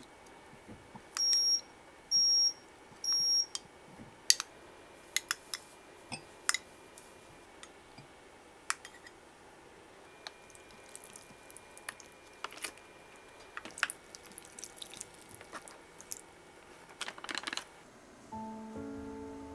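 Electronic beeper sounding three short, high beeps about a second apart, followed by scattered light clinks and taps of dishes and utensils. Music comes in near the end.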